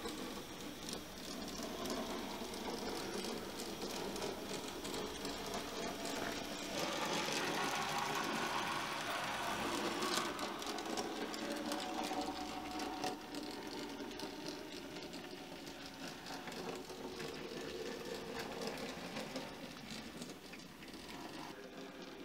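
H0e model narrow-gauge trains, including a C50 diesel locomotive model, running on the layout: small electric motors and gears whirring, with the wheels clicking and rattling over the track. It grows louder for a few seconds around the middle, then eases back.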